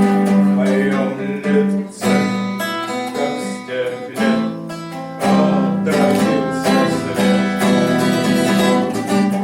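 Acoustic guitar strummed and picked in chords, accompanying an author's song (Russian bard song).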